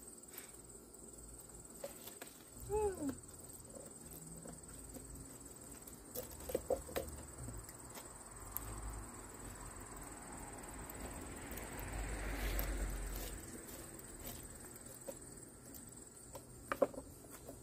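Crickets chirping steadily, with faint scattered clicks of metal from an air-conditioner condenser being pulled apart by hand. A broad swell of noise rises and fades about twelve seconds in.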